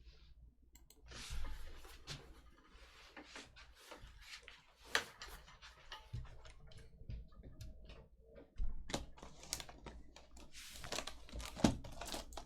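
Cardboard trading-card boxes and packs being handled and opened: scattered sharp clicks and taps with short rustles, growing busier near the end.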